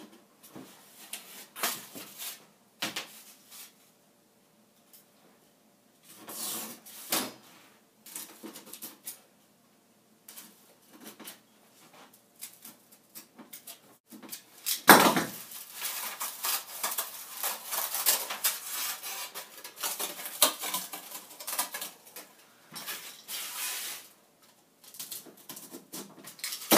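A utility knife cutting foam board by hand on a wooden bench: short scratchy scraping strokes with scattered clicks, a sharp knock about fifteen seconds in, then a long run of dense scraping cuts.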